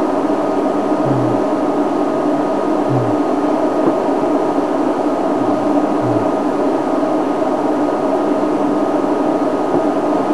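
A steady mechanical hum with hiss, with a few faint, short low thumps; no loud call is heard.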